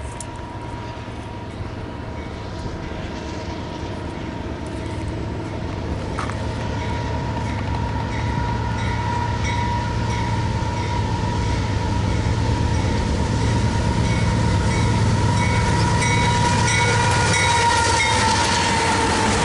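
BNSF freight train led by GE diesel locomotives approaching and coming alongside, its rumble growing steadily louder, with a steady high whine. From about halfway the locomotive's steel bell rings in an even rhythm.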